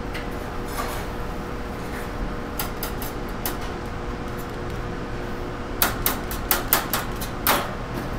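Light clicks and taps, then a quick run of sharp clinks near the end, as metal pie pans are handled on a stainless steel counter while pie crusts are crimped and trimmed by hand. Under them is a steady background hum.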